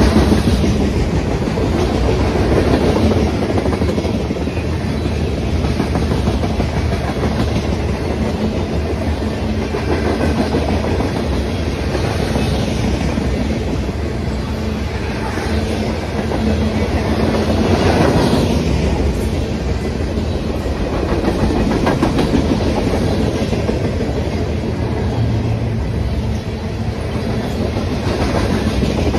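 Freight cars of a manifest train rolling past: a steady rumble of steel wheels on rail with clickety-clack over the joints, swelling louder now and then, most of all about two thirds of the way through.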